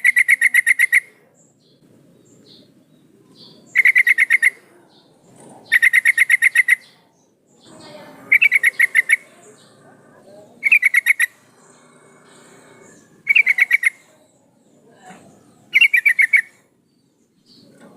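Female yellow-vented bulbul (trucukan) calling: seven short bursts of rapid chattering notes, repeated every two to three seconds.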